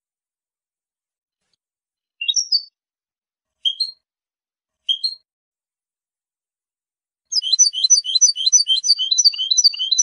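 European goldfinch singing: three short, separate high notes a few seconds in, then near the end a fast run of repeated twittering notes, about four a second.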